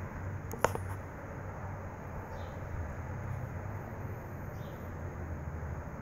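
Hummingbird giving faint, short high chirps, a few notes a couple of seconds apart, over a steady low hum. A single sharp click about half a second in is the loudest sound.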